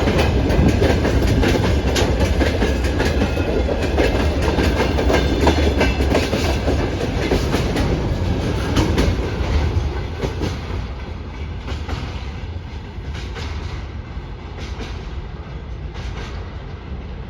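Freight train wagons rolling past with a steady clickety-clack of wheels over the rail joints and a low rumble, growing fainter from about ten seconds in.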